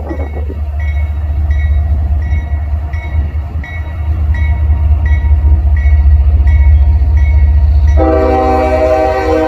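A train passes with a heavy low rumble while a railroad crossing bell strikes evenly, about one and a half times a second. About eight seconds in, a diesel locomotive's air horn sounds a loud chord and holds it.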